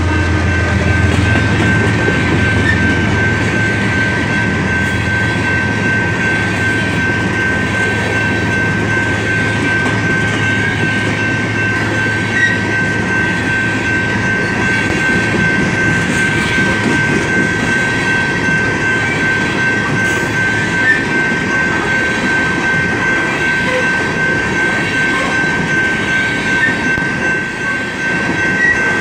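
Coal hopper cars of a BNSF freight train rolling past a grade crossing: a steady rumble and clatter of wheels on rail, with a steady high-pitched tone throughout. The low drone of the locomotives fades away over the first few seconds.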